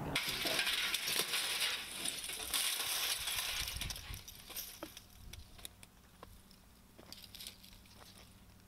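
Hand tools and hands sifting through burned house debris: scraping and rustling through ash at first, then scattered light clinks and taps of metal and broken glass.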